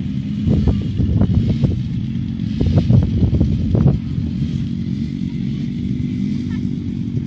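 ATV engines running steadily.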